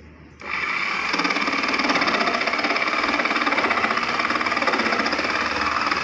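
Handheld electric jigsaw starting up about half a second in and cutting through plywood, a loud, steady, fast-pulsing buzz of the reciprocating blade.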